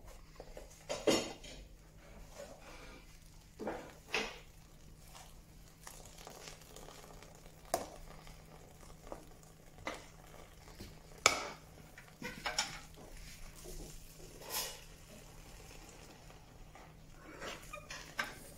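Scattered knocks, clinks and scrapes of hand work at a lever-operated briquette press: a sawdust mix being scooped from a plastic tub and packed into the press's metal chamber. The loudest is a single sharp knock about eleven seconds in.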